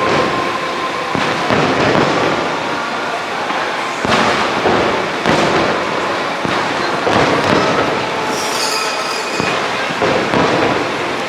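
Fireworks display: a run of booms and crackling bursts about every one to two seconds, each trailing off in an echo, with a brief high whistle a little past the middle.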